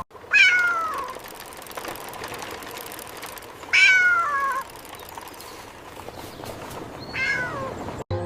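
A cat meowing three times, a few seconds apart; each call is a short, high meow that falls in pitch.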